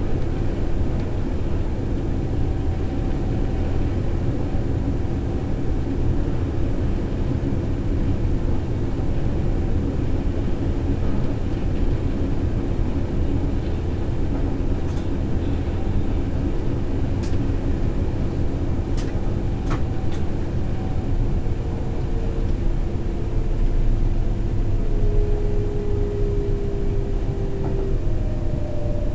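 Berlin S-Bahn electric train running, heard from the driver's cab: a steady rumble of wheels on rails with a constant whine, and a few sharp clicks midway. Near the end the whine slides lower as the train approaches the station.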